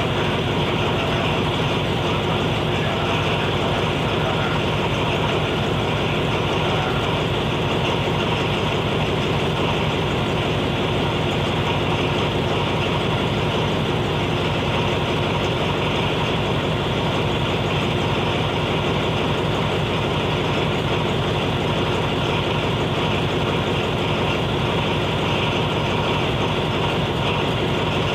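Alsthom AHK diesel-electric locomotive idling at standstill at close range: a loud, unchanging engine rumble with a steady hum.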